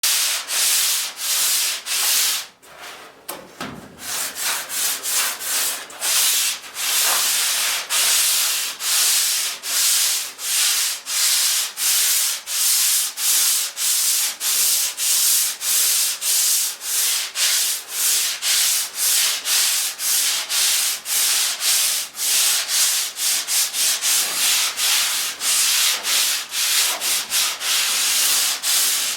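Hand sanding a truck fender with sandpaper: steady back-and-forth rasping strokes, about two a second, with a brief pause about three seconds in.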